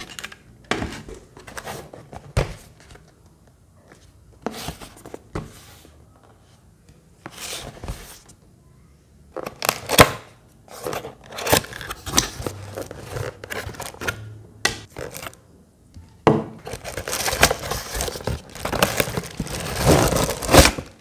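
Hands handling plastic and cardboard: scattered knocks and scrapes as a small plastic fan and its cardboard box are moved and opened, then a plastic bag crinkling steadily for the last few seconds as a fan wrapped in it is pulled from the box.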